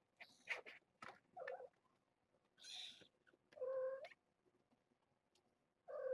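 Cats meowing: a short call about a second and a half in, a louder, longer meow about halfway through, and another near the end, with light scuffling and a brief hissy rustle in between.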